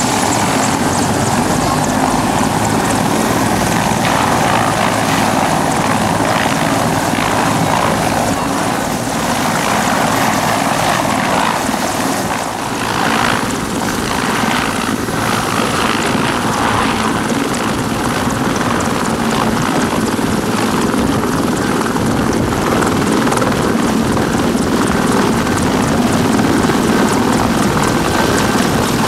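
Mil Mi-24P attack helicopter's turbine engines and main rotor running close by, loud and steady, as it lifts off the pad near the end.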